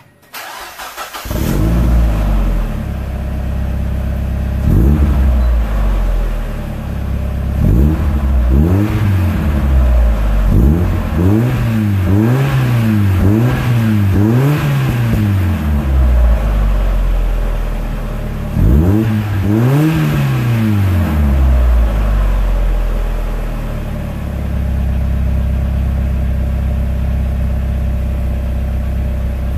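Mazda Miata (NB) four-cylinder engine heard through a Roadster Sport 3 exhaust with no muffler baffle. The engine starts up about a second in, then idles with several throttle blips, including a quick string of revs in the middle and two more later, before settling back to a steady idle.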